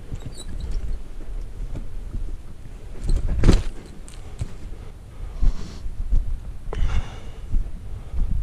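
Wind rumbling on a body-worn camera's microphone, with the hiker's breathing. Two louder rushes of noise stand out, the loudest about three and a half seconds in and a shorter one near seven seconds.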